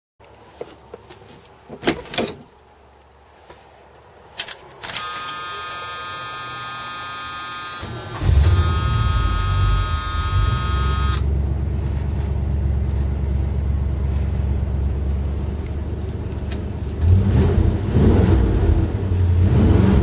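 1978 GMC Suburban's stock 350 V8 being started: a few clicks early on, then a steady high buzzing tone from about five seconds in as it cranks. The engine catches about eight seconds in and settles into a loud idle through dual glasspack mufflers; the buzz stops a few seconds later. The engine is revved in short surges near the end.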